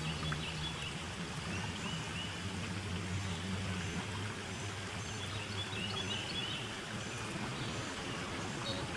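Steady outdoor background hiss with a low hum underneath, and small birds chirping briefly a few times.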